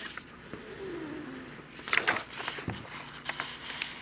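Plastic crackling and sharp clicks as a thin 3D-pen plastic shape is peeled off a plastic sheet, loudest about two seconds in. A brief hum falling in pitch comes about half a second in.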